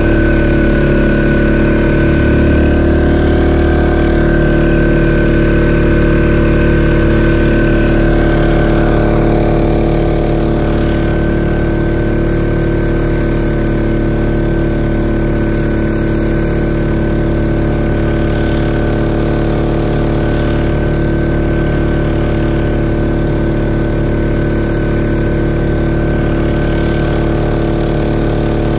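Mokai jet-propelled kayak's engine running steadily at speed, with water rushing in the jet wake; the engine note eases slightly about ten seconds in.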